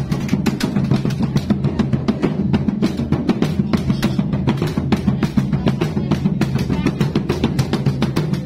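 Two gendang, red double-headed barrel drums typical of Pangkep, played together in a fast, steady interlocking rhythm: a dense run of sharp strokes, many a second, over the deep boom of the drum heads.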